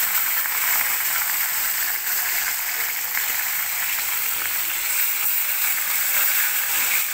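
Pieces of fish deep-frying in hot oil in a kadhai, a steady sizzle throughout.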